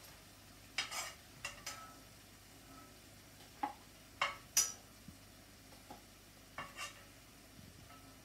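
Metal spoon clinking and scraping against dishes and a plate in short bursts: a few sharp clinks about a second in, a louder group from about three and a half to five seconds, and two more near seven seconds.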